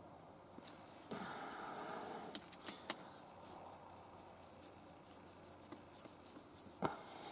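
Faint handling sounds of small-screw work on a power sliding-door motor unit: a rustle about a second in, a few light clicks of the screwdriver on the screws and metal bracket, and one sharper click near the end.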